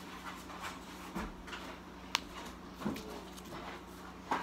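Quiet handling sounds of food being assembled: a plastic fork pushing mac and cheese onto a chicken sandwich bun and fingers pressing the bun, with one sharp click about two seconds in. A low steady hum runs underneath.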